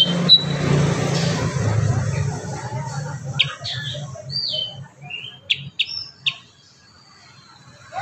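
Black-headed bulbul (kurincang) calling: a quick run of sharp chirps and short whistles from about three and a half to six and a half seconds in. Under it, a low background rumble fades after the first few seconds.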